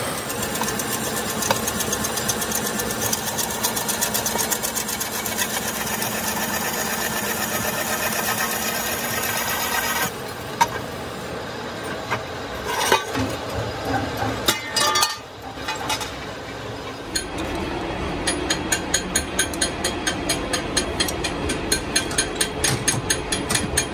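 Manual metal lathe running with a steel gear blank in its chuck: a steady machine hum with a whine of several tones. About ten seconds in it breaks up, with a few knocks and a brief dip. From about seventeen seconds it runs on with a fast, regular ticking, about three to four a second.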